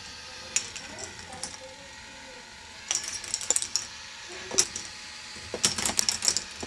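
K'nex ball machine running: plastic balls clicking and rattling along the plastic tracks and parts. A few scattered clicks at first, a quick cluster about three seconds in, and a dense clattering run near the end.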